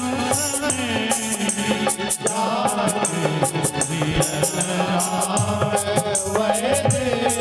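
Devotional Hindu bhajan being sung: a singing voice over a steady held drone, with regular jingling percussion strikes keeping the beat.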